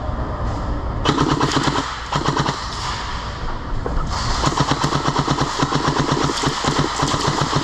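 Airsoft guns firing in rapid full-auto bursts, a fast even chatter of shots; short bursts in the first half and a long sustained stretch from about halfway through.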